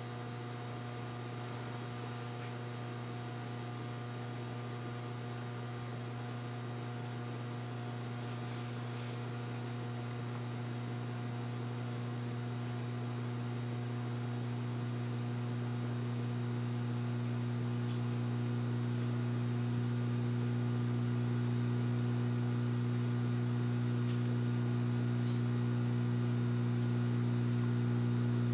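Low, steady mains hum from a 175-watt mercury vapor light fixture's magnetic ballast while a freshly started mercury vapor bulb warms up toward full power; the hum slowly grows louder.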